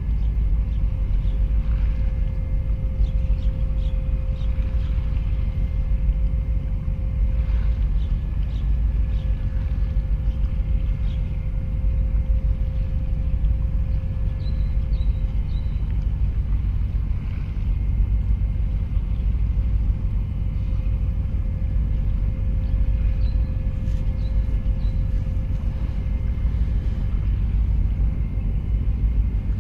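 Harbour ambience: a steady low rumble with a faint steady machinery hum, and a few faint high chirps about halfway through and again later.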